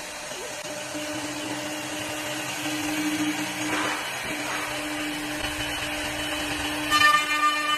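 CNC wood lathe turning wooden cue-stick blanks: a steady motor whine over the rushing noise of the cut. It grows gradually louder and jumps louder near the end.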